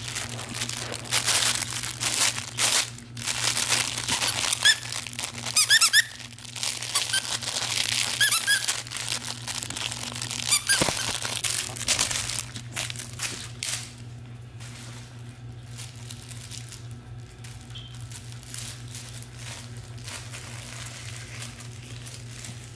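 Puppies tugging and chewing a fabric crinkle toy: crinkling and rustling, with quick runs of short high squeaks about five and eight seconds in. It turns quieter about halfway through, over a steady low hum.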